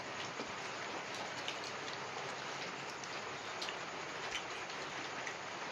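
Light rain falling steadily: an even hiss with a few faint drip-like ticks.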